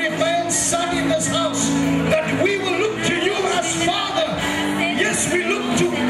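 Church worship music: long held chords with a voice singing over them.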